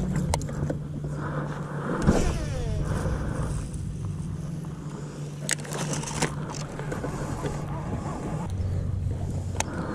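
Bow-mounted electric trolling motor humming steadily, its hum dropping to a lower pitch near the end. A few sharp clicks from the rod and reel stand out above it.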